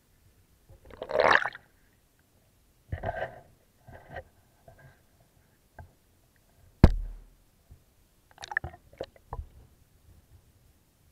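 Water splashing and sloshing around a camera as it is moved through the water and lifted out, in several short bursts, the loudest about a second in. A single sharp knock with a deep thud about seven seconds in, followed by a few smaller splashes and clicks.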